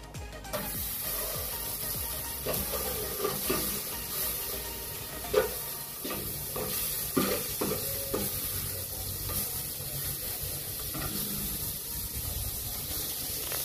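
Margarine sizzling as it melts in a hot aluminium pot, starting about half a second in, while a metal spoon stirs it and knocks and scrapes against the pot now and then.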